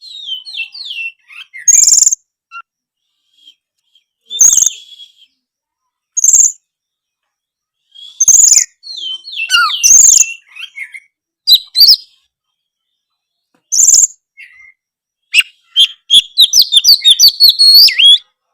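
Oriental magpie-robin (kacer) in full song: loud whistled phrases broken by sharp, high notes every couple of seconds, ending in a rapid run of notes over the last three seconds.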